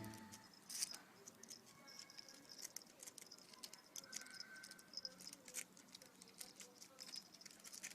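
Faint, scattered light clicks and pattering, with a faint short tone about four seconds in.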